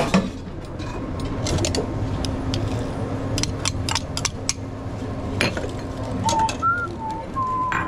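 Kitchen clatter: scattered sharp clicks and knocks of utensils and dishes over a steady low hum. Near the end come a few short high notes at changing pitches.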